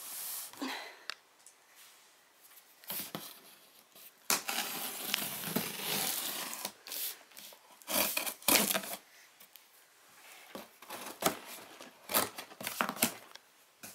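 A small blade slitting the packing tape along the seams of a cardboard box, with scraping and tearing in irregular strokes, the longest run of cutting starting about four seconds in.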